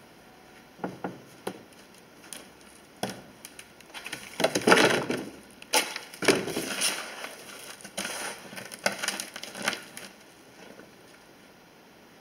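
Square plastic plant pots scraping and knocking as one is pulled off a stack, among scattered clicks and taps of handling on the worktable. The loudest scraping and rustling comes about halfway through.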